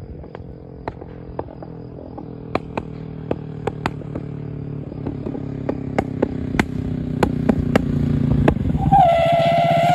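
Honda CBR 125 (JC34) with a 166 cc big-bore cylinder, its single-cylinder four-stroke engine running through a loud exhaust and growing louder as the bike approaches. The exhaust fires sharp pops and bangs (backfire shots) about once or twice a second. Near the end a higher, steady engine note comes in.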